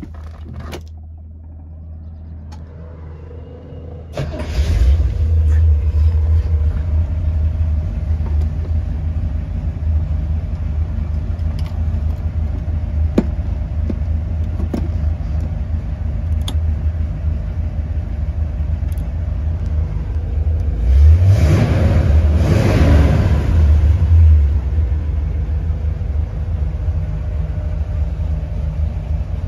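1964 Pontiac GTO's 389 V8 running at idle, heard from inside the car. It gets much louder about four seconds in, and the throttle is blipped once for a few seconds past the twenty-second mark before it settles back to idle.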